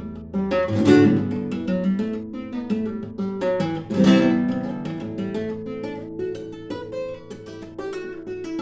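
Acoustic guitar playing an instrumental piece: quick runs of picked notes over ringing chords, with two louder strummed chords about one and four seconds in.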